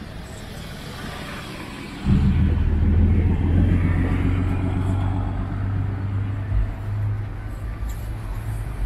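Road traffic with a vehicle engine running loudly close by: a deep, steady hum comes in suddenly about two seconds in and holds, easing off slowly toward the end.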